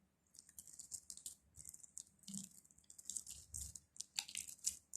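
Sticky glue-and-activator slime being mixed in a bowl, giving a fast irregular run of small, faint wet crackles and squelches.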